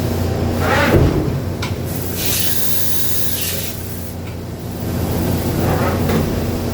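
Mori Seiki NH-6300DCG II horizontal machining center running under power, with a steady low hum. About two seconds in comes a loud spraying hiss lasting about a second and a half. There are shorter whooshing sweeps near the start and near the end.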